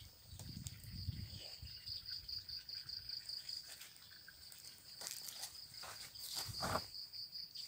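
An insect, cricket-like, trilling in a steady high pulsing chirp. Over it come rustling and handling noises from a woven plastic feed sack, with soft thumps early on and the loudest rustles about six to seven seconds in.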